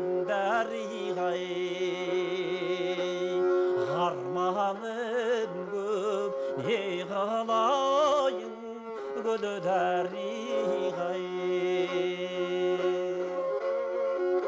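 Kobyz, the two-stringed Kazakh bowed instrument, playing a slow, sorrowful melody over a steady drone note. The melody wavers with wide vibrato and gives way briefly about nine seconds in.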